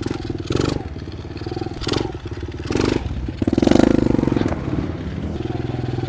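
Small dirt bike engine running, blipped up in short revs four times, the longest about three and a half seconds in, as the bike is walked up a flight of steps under power.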